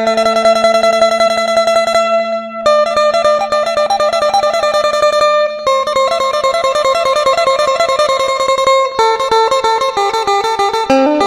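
Isan phin (northeastern Thai plucked lute) playing a lively melody of rapid plucked notes over a steady drone.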